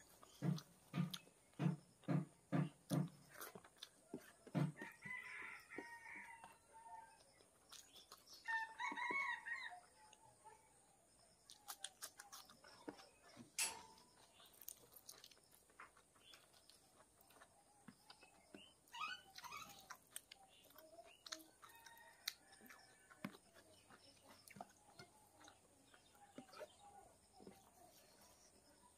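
Close-miked eating by hand: chewing in a steady rhythm of about two chews a second at first, then scattered wet lip smacks and clicks as fingers mix rice and curry on a steel plate. A bird calls briefly twice in the background, about five and nine seconds in.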